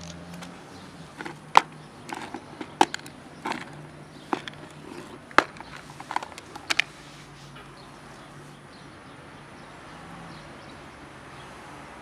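Clip-lid plastic food container being unlatched and opened by hand: a run of sharp plastic clicks and snaps for several seconds, then it goes quiet apart from a faint steady low hum.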